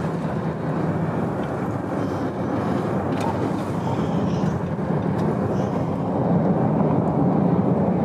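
Steady road and engine noise of a car driving at motorway speed, heard from inside the cabin, growing a little louder toward the end.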